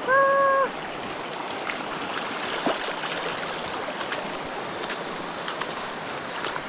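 Shallow mountain stream running steadily over rocks, with a few small sharp ticks and splashes. A short, loud held tone sounds in the first half-second.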